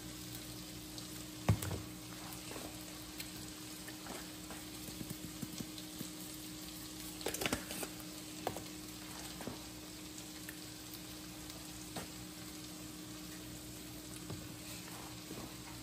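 Food sizzling quietly in a pan, with a steady low hum underneath. A few light clicks and knocks come through, the sharpest about a second and a half in and a small cluster around the middle.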